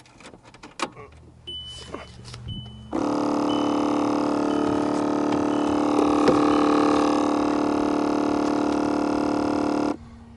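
Mk5 VW Jetta's recirculation flap servo motor, key on, running with a loud steady buzzing hum for about seven seconds and then cutting off suddenly. It is straining against a flap gear that looks seized: the faulty motor behind the glovebox. A few light clicks come first.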